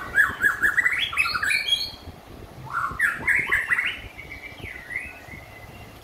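White-rumped shama singing: a quick run of whistled notes climbing in pitch, a second similar run a moment later, then a softer gliding whistle near the end. It is a caged bird coming back into song form after its molt.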